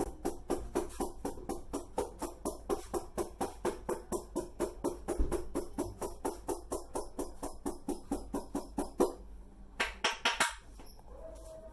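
Rapid, even slapping of a masseur's hands on a client's head in Indian head massage percussion strokes, about five strikes a second. The strikes stop about nine seconds in, then come a few louder strikes a second later.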